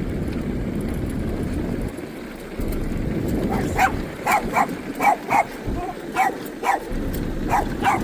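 A dog barking in short, sharp, excited yaps, about two a second, starting a few seconds in, as it goes after a squirrel. A steady low rumble runs underneath.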